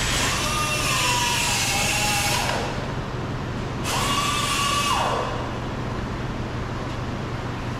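Cordless drill/driver spinning out a door trim panel screw in two runs. Its whine slides down in pitch each time the trigger is let go, the first run stopping about two and a half seconds in and the second lasting about a second from four seconds in.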